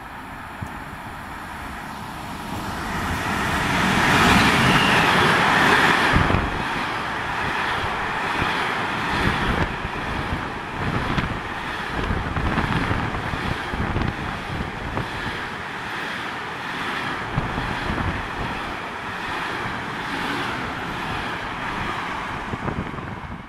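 Freight train running through a station: the noise builds as it approaches and is loudest about four to six seconds in as the locomotive passes, then the wagons roll by in a steady rumble broken by irregular low knocks from the wheels.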